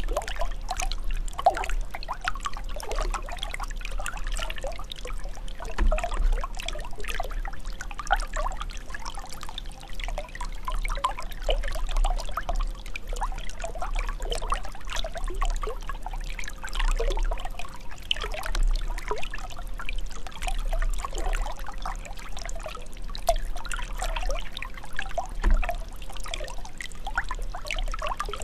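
Running water trickling and gurgling steadily, full of small irregular bubbling splashes.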